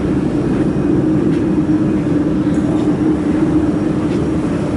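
Laser welding machine setup switched on and running: a steady, loud machine hum with a constant low tone over a whirring noise.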